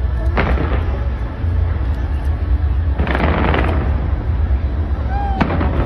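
Fireworks display: a constant deep rumble of launches and bursts, with sharper crackling reports about half a second in, around three seconds in, and again near the end.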